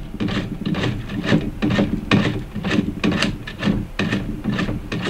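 A pink bar of laundry soap being grated on a flat metal hand grater, rasping back and forth at about three strokes a second.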